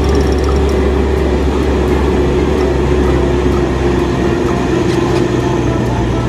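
Steady engine-like running sound with a deep hum and a slightly falling mid tone, going with a wired remote-control toy dump truck driving over dirt.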